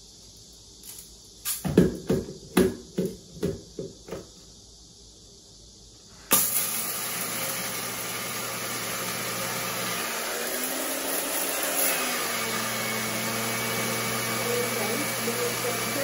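A series of plastic clicks and knocks, then a capsule espresso machine's pump switches on abruptly about six seconds in and runs with a steady loud buzzing hum as it brews.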